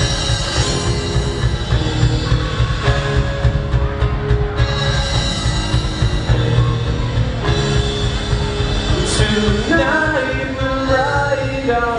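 A rock band playing live on stage: electric guitars and drum kit, with a sung vocal coming in near the end.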